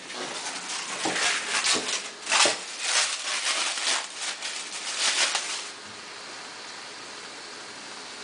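Irregular rustling and handling noises, with a few soft knocks, for about six seconds, then a faint steady hiss, which fits oil gently sizzling on low heat.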